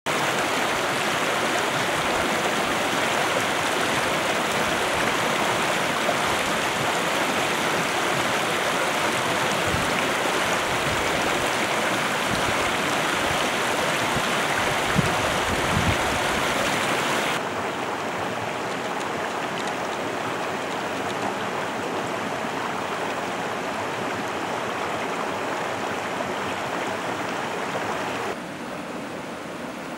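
Steady rushing of a flowing stream, stepping down in loudness twice, about two-thirds of the way through and again near the end.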